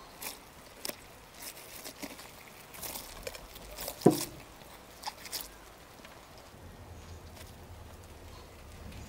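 Knife carving a whole roast lamb: scattered crackles and scrapes as the blade cuts through the roasted skin and meat at the shoulder, with one sharp knock about four seconds in as the joint is cut free.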